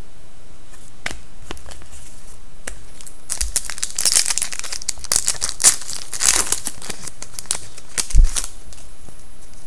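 A 2011-12 SP Authentic hockey card pack wrapper being torn open and crinkled, the crackling starting about three seconds in, after a few light clicks. There is a sharp thump near the end.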